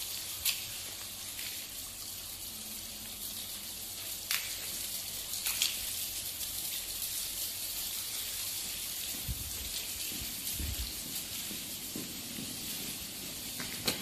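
Steady rushing hiss of outdoor night ambience picked up by a handheld camera's microphone, with a few faint clicks and some soft low thumps a little past the middle.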